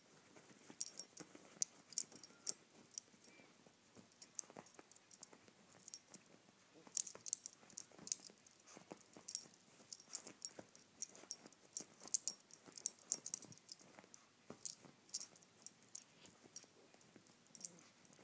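Yorkshire terrier digging and pawing at a comforter: fabric rustling and scratching, with the metal tag on its collar jingling in quick, irregular clinks that come in bouts.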